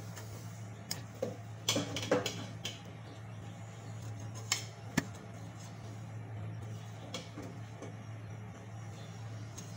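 Metal spoon clinking and scraping on a plate while rice is served: a cluster of sharp knocks between about one and three seconds in, the loudest near two seconds, two more near five seconds, and a few faint taps later. A steady low hum underneath.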